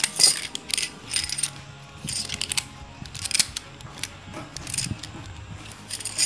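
A bundle of red anodised aluminium Eiger tent pegs clinking and rattling against one another as they are handled, along with a clear plastic packaging bag crinkling: an uneven string of light metallic clicks.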